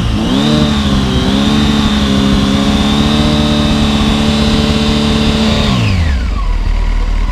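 Honda Hornet 900's inline-four engine through an IXIL silencer with its baffle fitted, held at a steady 4500 rpm for a static sound-level test. The revs climb in the first second, hold steady for about five seconds, then fall back to idle near the end. The meter reads 87 dB after the 5 dB correction, against the 85 dB the bike should make.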